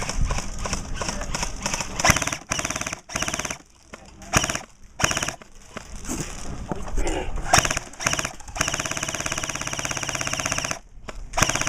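Airsoft guns firing on full auto: several short bursts of rapid shots, then one long, evenly spaced burst lasting about two seconds near the end.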